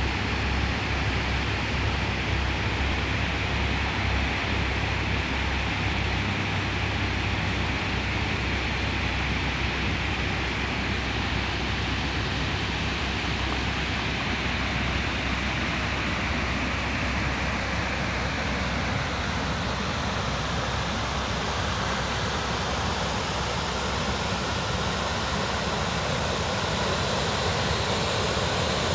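Steady rushing of water from a small waterfall, with a low rumble underneath; the hiss grows brighter near the end.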